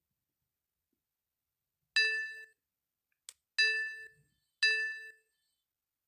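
Three identical short electronic chimes, each ringing for about half a second and fading, with a single sharp click between the first and second.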